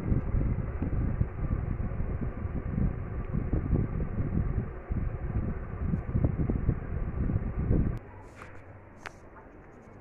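Gusty low rumbling of air buffeting the microphone. It cuts off suddenly about eight seconds in, leaving a quieter background with a couple of sharp clicks.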